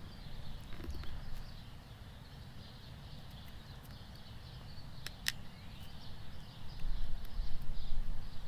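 Outdoor ambience: a steady low rumble with faint chirping in the background, two sharp clicks about five seconds in, and louder low thumps and rustling near the end.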